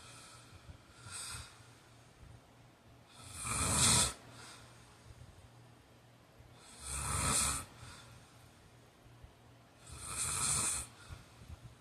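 A man snoring in his sleep: three loud snores about three seconds apart, each about a second long, with a fainter breath about a second in.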